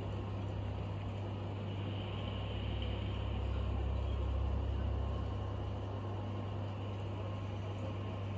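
Steady fan noise: a constant whir over a low hum, swelling a little a few seconds in.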